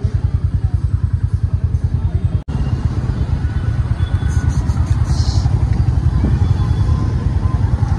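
Motorbike running while being ridden, heard from the pillion seat: a loud, fast low pulsing rumble, with street traffic around. The sound drops out for an instant about two and a half seconds in.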